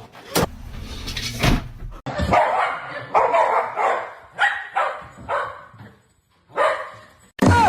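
A dog barking, a string of short barks with brief pauses between them.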